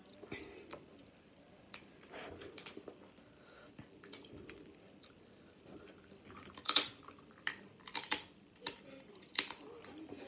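Close-up eating of crab legs: irregular sharp clicks and crackles of shell being broken and picked apart, with wet mouth smacks. They are sparse at first and come thicker and louder in the second half.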